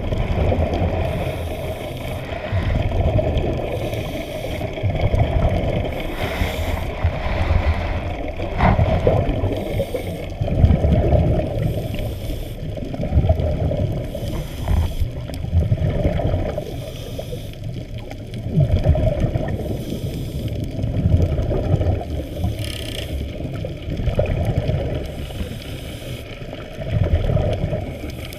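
Water noise heard from under the water through a camera's waterproof housing: a low, muffled wash that swells and fades every second or two as the camera moves through the water.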